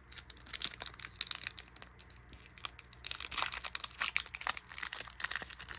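Foil Pokémon booster pack wrapper crinkling as it is handled, with scattered sharp crackles that grow busier about halfway through.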